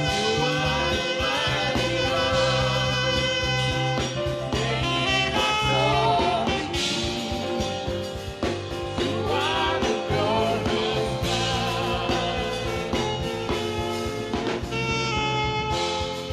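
Saxophone playing a slow worship melody with wavering vibrato over a backing track of held chords and bass.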